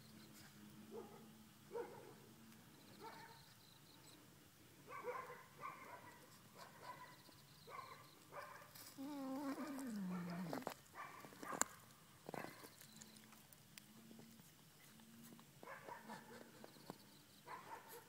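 Stray cat eating a whole small bass, with irregular wet chewing and crunching at the fish. About halfway through there is one low, drawn-out cat vocalization that falls in pitch.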